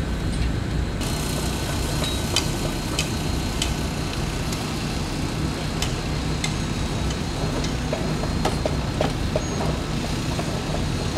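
Outdoor construction-site background: a steady low rumble with scattered light clicks and knocks, and a few short high chirps in the last few seconds.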